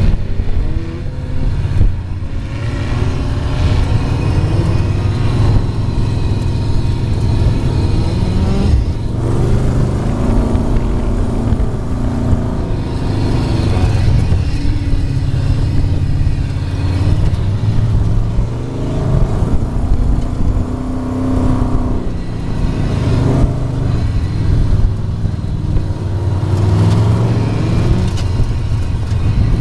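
Dune buggy engine running hard, heard from on board, its pitch rising and falling again and again as the throttle opens and closes.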